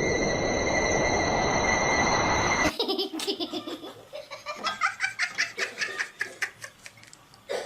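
A steady rushing noise with a high steady tone, then, after a sudden cut about three seconds in, a person laughing in quick repeated bursts.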